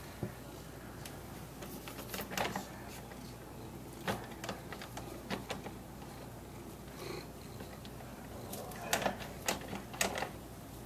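A long-haired colorpoint cat purring quietly at a closed door, with scattered soft clicks and rustles. Near the end it gives a short cry.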